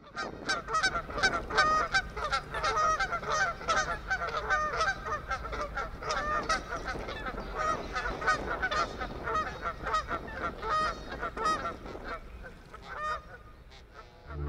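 A large flock of geese honking, many calls overlapping. The calls thin out and fade over the last couple of seconds.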